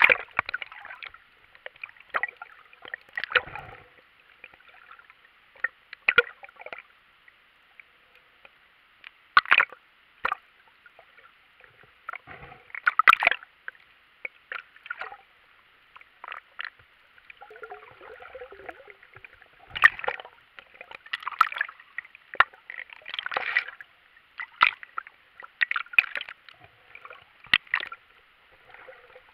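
Muffled underwater sound picked up through an action camera's waterproof housing: irregular sloshing and bubbling bursts every second or two over a faint hiss, with the loudest splash at the very start as the camera goes under.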